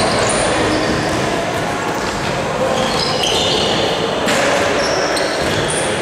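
Basketball game sounds in a reverberant gym hall: the ball bouncing on the floor and scattered short high squeaks of sneakers on the court.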